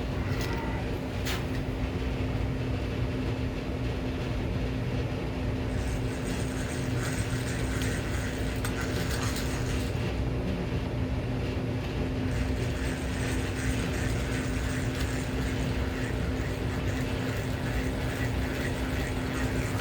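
Hand tool working into wood, a continuous mechanical clicking and grinding, over a steady low hum.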